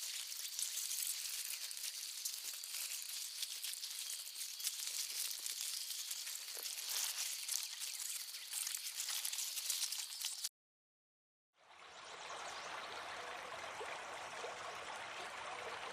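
Steady hiss of running water. It cuts out for about a second some ten seconds in, then comes back fuller, with more low rushing.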